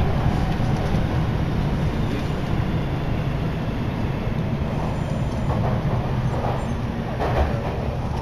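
Inside a Toei Mita Line subway car running through the tunnel: a steady low rumble of wheels and motors, easing a little near the end as the train pulls into a station.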